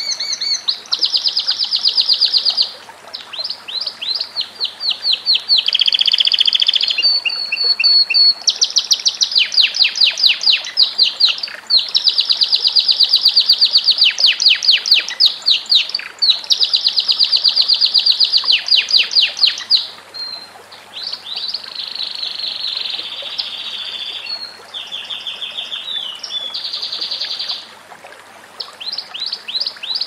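Domestic canary singing a long, loud, nearly unbroken song of rapid trills. Each trill is a fast run of one repeated note, and the song switches to a new trill every one to three seconds, with brief pauses now and then.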